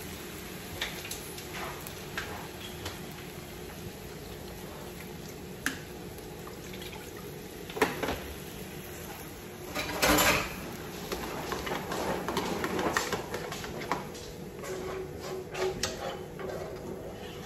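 Salsa cooking in a frying pan with a steady low hiss. About ten seconds in, water poured from a plastic container into the pan gives a short splashing rush. Then a spoon scrapes and taps against the container and the pan, with a run of clicks and knocks near the end.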